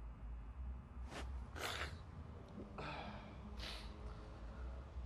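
A man's heavy breathing: four short sniffs and exhales in quick succession, over a steady low hum.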